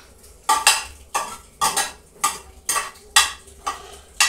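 Metal ladle stirring leafy soup in a stainless steel pot, knocking and scraping against the pot about twice a second.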